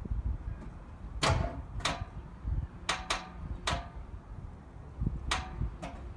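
About seven sharp metallic clicks at uneven intervals, two of them close together, from the 1984 Oldsmobile Cutlass's starter solenoid as the key is turned, with no cranking: the battery is too dead to turn the starter. A low rumble runs underneath.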